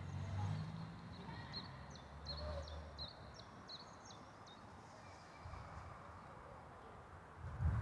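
A small songbird singing a quick run of about seven high chirps, under a faint low rumble that dies away after about three seconds.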